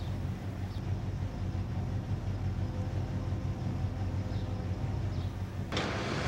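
A steady, low engine-like hum. A louder rushing noise comes in sharply near the end.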